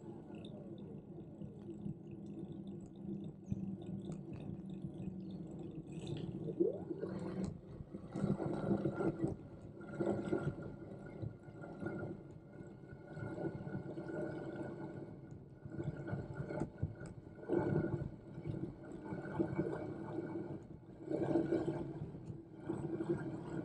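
Electric bike's hub motor whining steadily, its pitch gliding up and down with speed, with recurring bursts of rushing wind and tyre noise every second or two.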